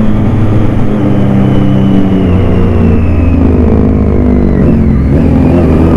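Motorcycle engine running under way, loud and close. Its pitch shifts about two seconds in and starts to climb again near the end as the bike accelerates.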